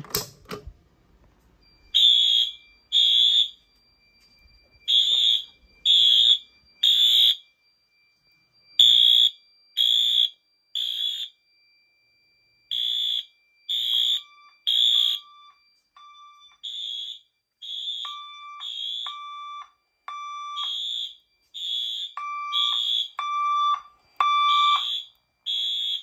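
Fire alarm notification appliances sounding the temporal-three evacuation code after a manual pull station is pulled: three short, high-pitched blasts, then a pause, repeating about every four seconds. About halfway through, a second, lower tone joins in slightly out of step with the first, so several devices sound together.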